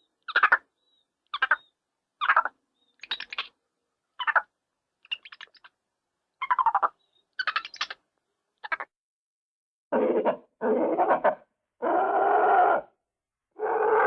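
A series of separate animal chattering sound effects: short high chatters about one a second, then from about ten seconds in longer, lower calls.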